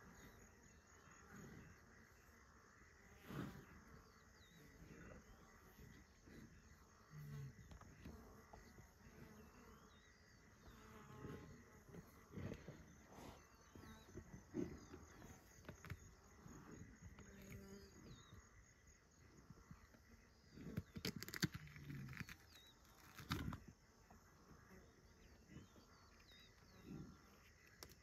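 Near silence with a faint, pulsing insect trill that comes and goes, and scattered soft knocks. A short run of louder clicks comes about three-quarters of the way in.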